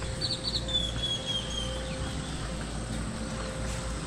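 A bird calling: three quick high notes, then a long, slightly falling whistle, over a steady outdoor background hum.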